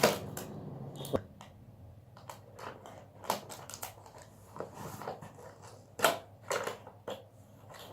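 Cardboard and plastic packaging of a keyboard-and-mouse set being opened and handled: an uneven string of sharp clicks, taps and crinkles. The loudest come right at the start and about six seconds in.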